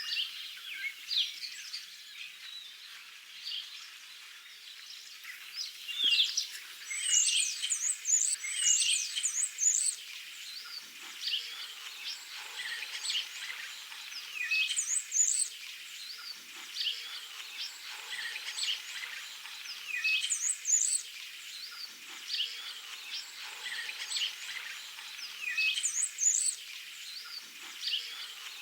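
Several small birds chirping and singing. A high, rapid chirping phrase is loudest about seven to ten seconds in and comes back every five or six seconds after that.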